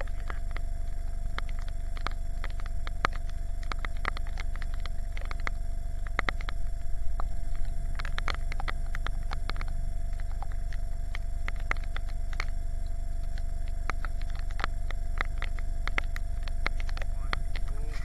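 Heavy storm rain falling on a lake, with many irregular sharp drop taps over a steady low rumble of strong wind on the microphone.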